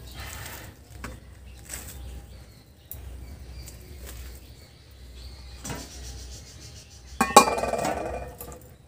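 Metal kitchen vessels and utensils clinking lightly, then a loud ringing clank of a metal vessel about seven seconds in.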